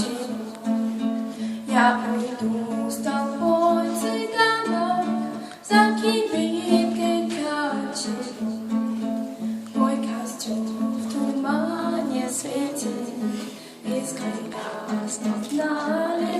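A woman singing a slow Russian romance with vibrato, accompanied by a plucked acoustic guitar.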